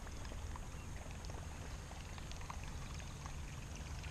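Water trickling and dripping around a fishing kayak, with scattered small splashes over a steady low rumble.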